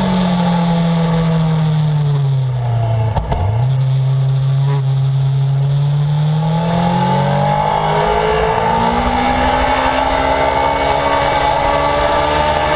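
Honda CBR1000RR Fireblade's inline-four engine heard onboard over wind noise. The engine note falls as the bike slows for a corner, breaks off briefly about three seconds in, holds low through the bend, then rises steadily as the bike accelerates out.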